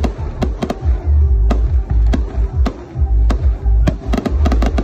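Aerial firework shells bursting, a string of sharp bangs and pops with a rapid cluster near the end, over loud music with a heavy bass.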